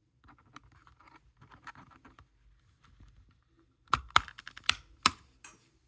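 Plastic parts of a PS5 DualSense controller being handled during disassembly: light scraping and rustling, then a quick run of sharp plastic clicks and snaps in the second half.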